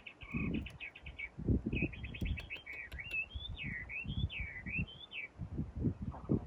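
A small songbird singing: quick chirping trills, then a warbling phrase of rising and falling notes in the middle. Irregular low thuds run underneath.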